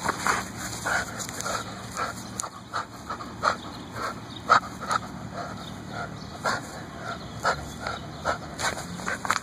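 A brindle dog chewing and tugging at a torn-up basketball, its rubber cover giving irregular sharp crunches and snaps, about one or two a second.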